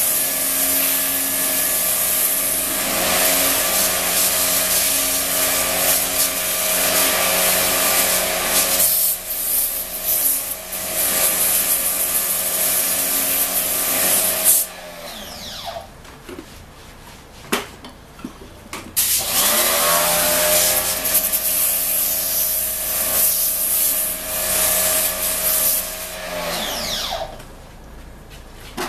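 Electric high-pressure washer pump running with a steady hum while the jet sprays water onto the air-conditioner panel parts. It cuts off about 15 seconds in, its pitch falling as it winds down, starts again about 20 seconds in with a rising pitch, and stops once more near the end.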